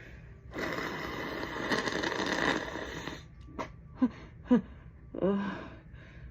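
A woman blowing her congested nose hard into a tissue in one long blow lasting about two and a half seconds, starting about half a second in, followed by a few short, sharp sniffs and small breathy vocal noises. Her nose is stuffed up from allergy sneezing.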